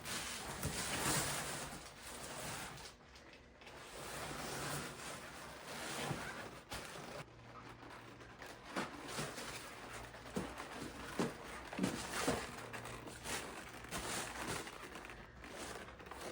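Faint, irregular rustling and handling noises from a package being opened, with several short knocks and taps in the second half.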